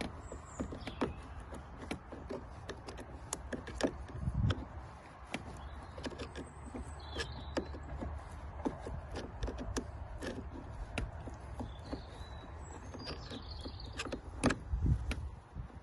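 Irregular small clicks, taps and scrapes of a screwdriver working at the metal and plastic parts of a motorhome door lock mechanism, with a duller knock about four seconds in and another near the end.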